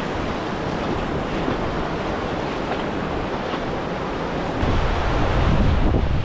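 Fast-flowing river water rushing steadily. About four and a half seconds in, the sound turns suddenly into a deeper, louder rumble with wind buffeting the microphone.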